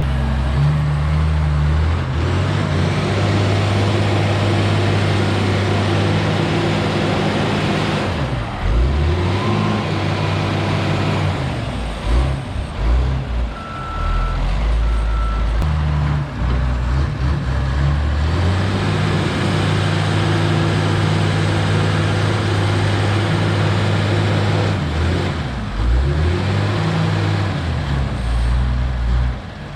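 Heavy diesel equipment engine running under load, its pitch dropping and climbing again several times as it works, with two short beeps about halfway through.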